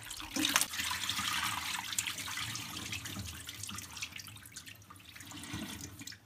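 Water sloshing and splashing as live yellow eels are rinsed by hand in a stainless-steel basin, with water pouring out into a steel sink as the basin is tipped. The splashing is loudest at first and fades toward the end.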